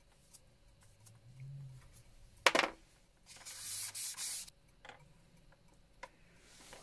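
Work on a slate clock case: a sharp knock about two and a half seconds in, then a hiss lasting about a second, then a few light clicks.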